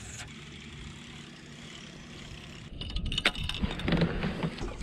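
Kayak on the water: a steady low hum, then from about three seconds in a run of knocks, clatter and water sounds as the angler handles gear and the kayak moves.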